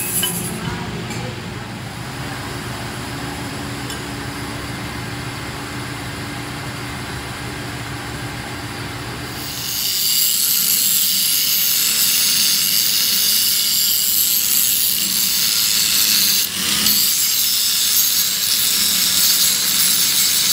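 A steady low hum, then about halfway through an angle grinder bites into the welded kingpin eye of a cracked truck front axle and grinds steadily with a loud, high hiss, with one brief dip about two-thirds through. The weld bead is being ground down after the crack was welded.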